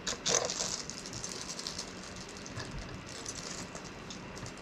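Rustling and crinkling of a small plastic bag being handled, louder in a short burst right at the start, then light crackles.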